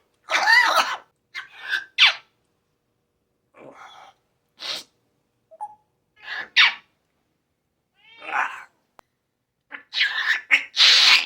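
Pet parrot making a string of short cough- and sneeze-like bursts, about nine in all, separated by silent gaps, with a denser run of them near the end.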